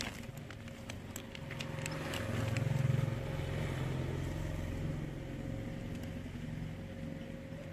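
A motor vehicle's engine rumbling, swelling to its loudest about three seconds in and then easing off. There are a few light clicks in the first two seconds.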